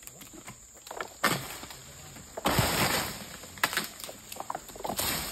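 Egrek palm-harvesting sickle on a long pole cutting at an oil palm frond high in the crown: a few sharp cracks, and about two and a half seconds in a loud rustle of palm leaves lasting under a second.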